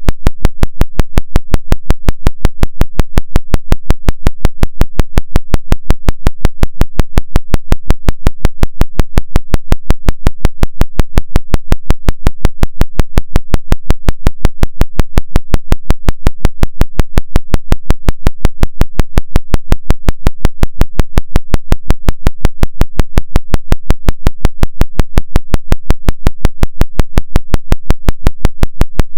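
A 5.5 Hz isochronic tone for theta brainwave entrainment: a low synthetic tone pulsing on and off about five and a half times a second, steady and unchanging.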